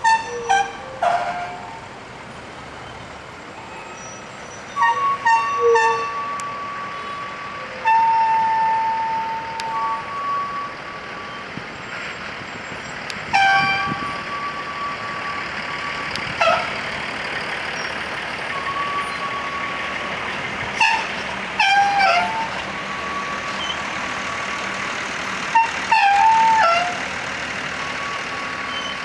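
Tour buses' Basuri multi-tone musical horns playing short bursts of melodic notes every few seconds. Some notes are held steady and some bend in pitch, over a steady hum of traffic and engines.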